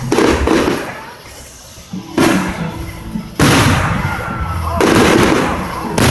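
Fireworks going off: five sudden loud bangs, roughly one every one to two seconds, each fading away over a second or so.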